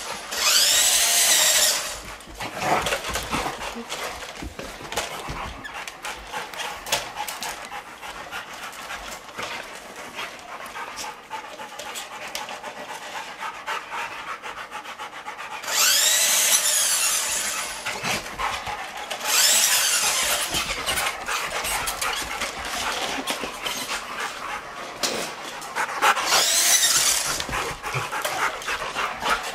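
A toy remote control truck's electric motor whining in four short bursts, its pitch rising and falling as it speeds up and slows down. Between the bursts, rottweilers pant and move around, with many small clicks.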